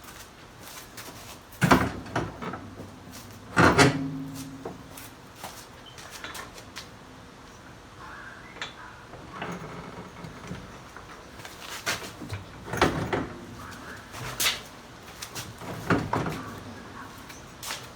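Irregular knocks and clunks of parts and tools being handled during work on a UTV's front suspension. The two loudest come about two and four seconds in, the second leaving a short ring, and a few more knocks follow near the end.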